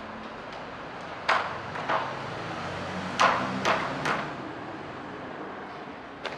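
Hammering: about six sharp, irregularly spaced strikes with short ringing tails, over steady background noise.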